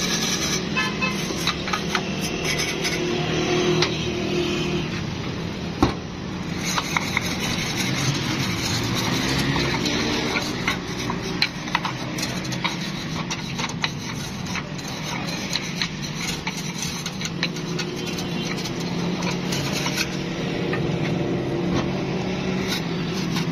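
Hand wire brush scrubbing the finned metal casing of an old electric water-pump motor: a steady rasping full of small scrapes and clicks. A low engine hum runs underneath.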